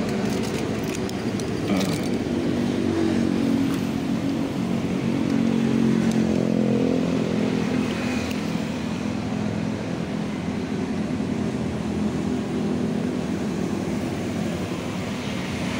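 Road traffic: a motor vehicle engine running close by, building to its loudest a few seconds in and then slowly fading.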